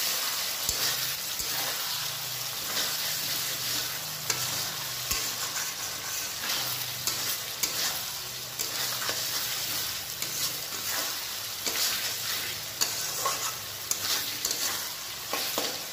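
Spice masala with chopped tomatoes and green chillies sizzling in hot oil in a metal kadai, while a metal spatula is stirred through it with repeated scrapes and knocks against the pan. This is the masala being fried down (kashano) until cooked.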